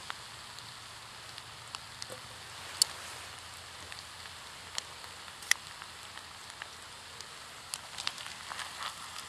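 Food frying in cooking oil in an uncovered skillet over a wood-burning camp stove: a steady sizzle with scattered sharp pops.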